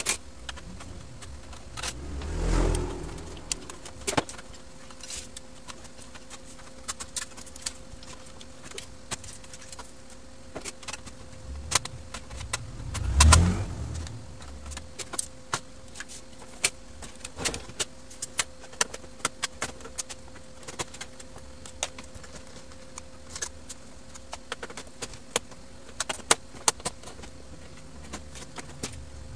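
Small clicks and rattles of a screwdriver, screws and plastic parts being handled as a Brother DCP-1615NW laser printer is taken apart, with two louder knocking, scraping handling noises about two and a half and thirteen seconds in. A faint steady hum lies underneath.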